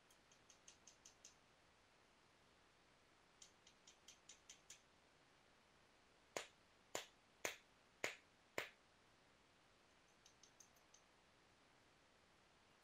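Flintknapping on a piece of Rainy Buttes stone: runs of light, quick clicking taps, then five sharp strikes about half a second apart a little past the middle, and a few more light taps near the end.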